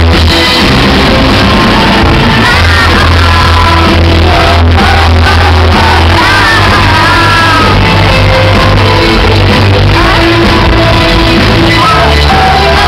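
Live band playing very loud: a woman singing into a microphone over drums, guitar and a heavy, steady bass.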